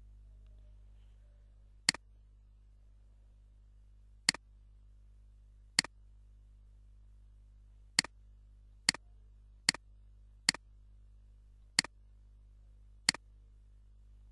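Computer mouse clicks, nine single sharp clicks at uneven intervals, over a steady low electrical hum.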